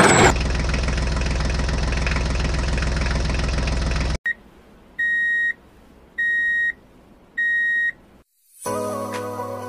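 Engine sound of a toy tractor, a steady diesel-like running note that cuts off suddenly about four seconds in. Three high electronic beeps follow, about a second and a quarter apart. Music starts near the end.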